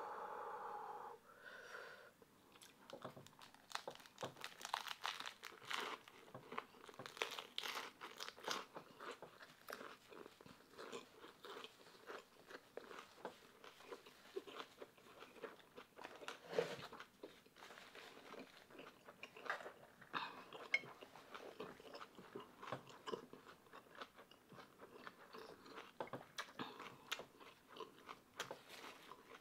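Chewing a lettuce wrap of fried pork belly and kimchi, with many short crisp crunches throughout.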